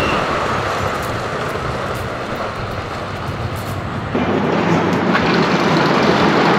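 Wooden roller coaster train running along the track, a steady rumble and rush of wheels and wind that gets louder about four seconds in.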